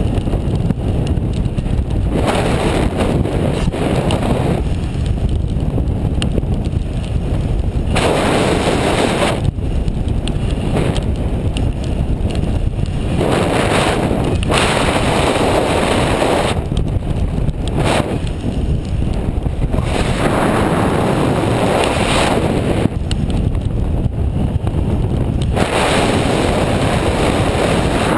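Wind rushing over an action camera's microphone in paraglider flight: a steady low buffeting that swells into louder, brighter gusts every few seconds.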